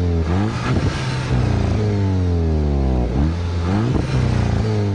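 Engine revving in repeated throttle blips: the pitch climbs quickly and sinks back slowly, several times over, above a steady low running note.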